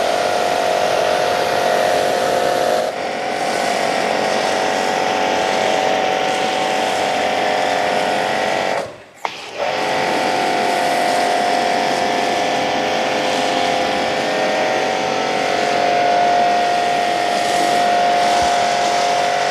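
Shakti S3 electric pressure washer running, its pump motor humming steadily over the hiss of the foam cannon spraying shampoo foam. The sound cuts out briefly about nine seconds in and then carries on.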